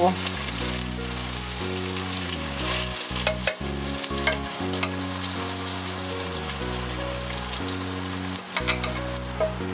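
Marinated basmati rice sizzling in hot ghee and oil in a pan on a low flame, with a few light clicks.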